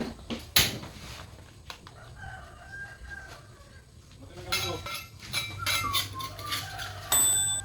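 Chickens calling in the background, with wavering clucks and crowing. There is a sharp knock about half a second in and a loud harsh burst near the end.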